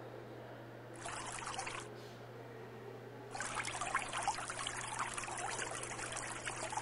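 Bathroom faucet running, the water splashing over soapy hands and into the basin. There is a short rush of water about a second in, then the water runs steadily from a little past three seconds.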